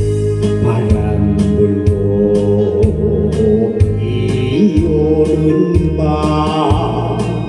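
Instrumental interlude of a Korean trot song played from a backing track: a steady drum beat, a bass line and organ-like keyboard chords.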